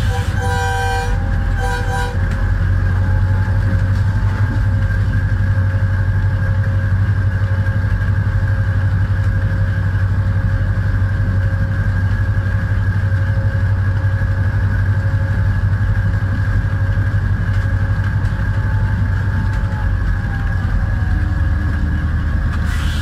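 HGMU-30 diesel-electric locomotive running at speed, a steady low drone with a constant higher whine over it. Its multi-tone horn sounds in a few short blasts during the first two seconds.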